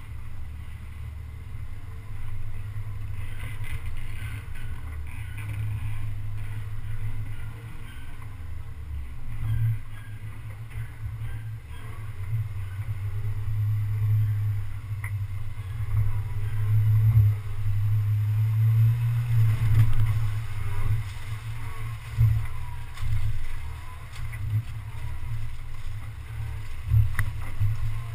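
Off-road 4x4 driving slowly over a rough forest trail. Its engine and drivetrain make a low, muffled rumble that swells in the middle stretch, with occasional knocks from the chassis jolting over bumps.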